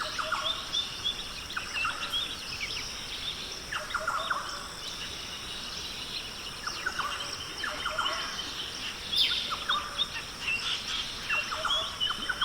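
Birds chirping: many short, quick chirps and sweeping calls scattered throughout, over a steady high hiss.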